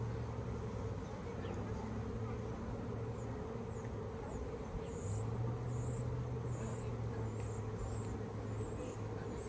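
Honeybees from a just-installed package buzzing as they fly around the hive, over a steady low hum that drops out for a couple of seconds midway. A few short high chirps sound in the second half.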